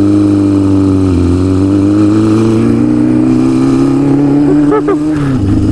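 Motorcycle engine accelerating under the rider. Its pitch dips briefly about a second in, then climbs steadily for several seconds and drops off sharply near the end.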